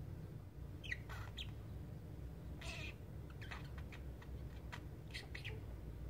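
Green budgerigar sleep-talking: a scattering of short, soft chirps and squeaky chatter notes with gaps between them.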